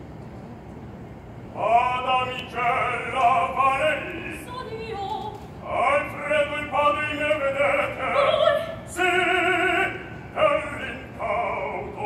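Opera singer singing in phrases with strong vibrato over a quiet orchestra, starting about a second and a half in.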